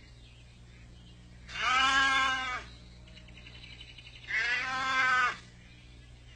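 A calf bawling twice, two drawn-out calls of about a second each, some three seconds apart.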